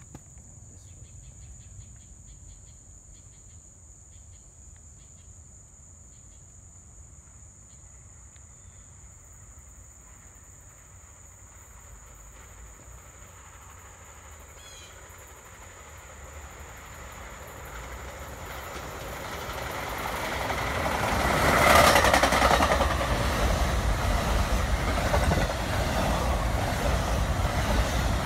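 A New Jersey Transit commuter train approaching on the rails, growing louder from about halfway in and loudest about three-quarters through, then still running at the end.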